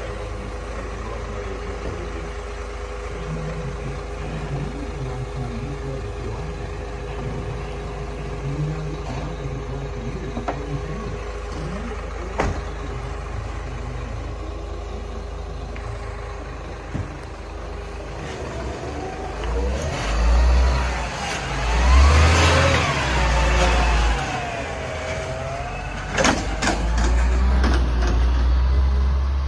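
Isuzu garbage truck's diesel engine idling steadily with a faint steady whine. From about two-thirds of the way in it revs and pulls away, its pitch rising and falling through the gear changes.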